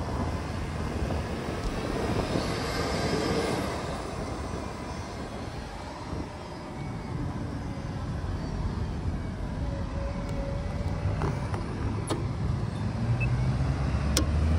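Street traffic noise with wind rumbling on the microphone, heard from a moving bicycle; a vehicle swells past about two to four seconds in. A couple of sharp clicks come near the end.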